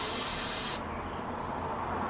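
Hiss and static from a weather radio receiver between broadcasts, opening with a band of higher-pitched hiss that cuts off suddenly under a second in.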